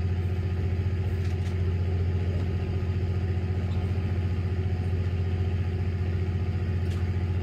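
Fishing boat's engine idling steadily, a low even drone with a fast regular pulse.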